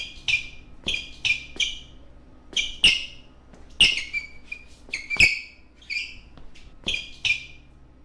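Sneakers squeaking on a wooden floor under dance footwork: about fifteen short, sharp squeaks, each starting with a click, coming irregularly at one or two a second.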